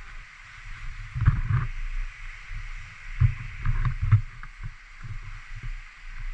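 Irregular low thumps and rumble from a handheld camera's microphone being jostled while walking on a trail, louder about a second in and again around three to four seconds in, over a steady hiss.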